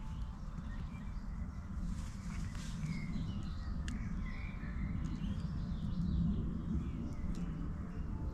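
Woodland ambience: birds chirping now and then, mostly a few seconds in, over a steady low rumble.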